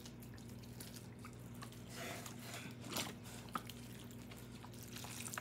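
Chicken broth pouring from a carton onto crumbled cornbread and bread in a foil pan, a faint wet trickle soaking into the dry crumbs, with soft crackles and a few small clicks around the middle.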